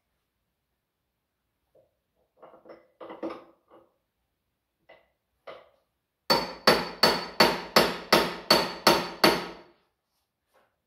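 A hammer striking metal: a few light clanks of tools, then about nine sharp, ringing blows in quick succession, roughly three a second.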